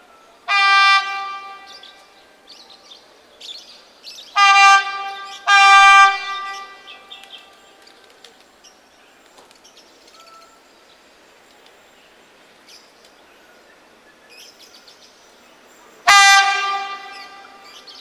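Horn of the approaching KAIS Kelud inspection train sounding four short single-tone blasts: one right at the start, a quick pair a few seconds later, and one near the end. Each blast stops sharply and rings out briefly after it.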